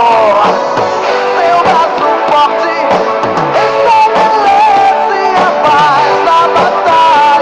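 Music: a song with a sung melody over a full band accompaniment, steady and loud throughout.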